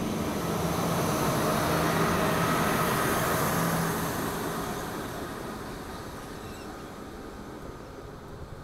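A train passing, with a steady low hum under the running noise, growing to its loudest about two seconds in and then fading away over the next few seconds.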